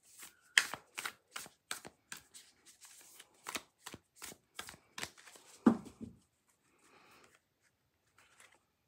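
A thick matte tarot deck being hand-shuffled from one hand to the other, the cards slapping together in a steady run of about two and a half strokes a second, then one duller thump about five and a half seconds in. The cards slide freely without sticking together.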